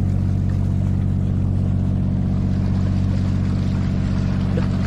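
Boat engine running at a steady speed, an even low drone.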